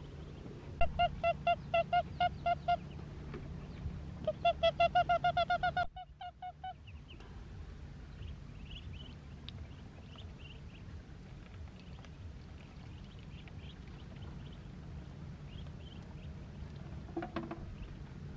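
Birds calling: two quick runs of loud calls, about five a second, in the first seven seconds. Faint high peeping from ducklings follows.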